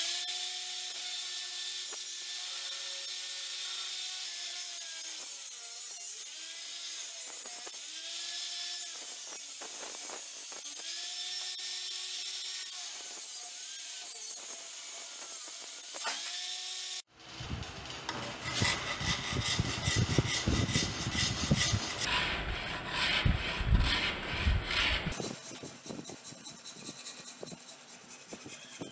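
Homemade table saw's circular blade cutting through a wooden plank, its whine dipping in pitch again and again as the motor takes the load. About two-thirds of the way through it cuts off abruptly and gives way to rough back-and-forth rasp strokes on wood held in a vise, loud at first and fainter near the end.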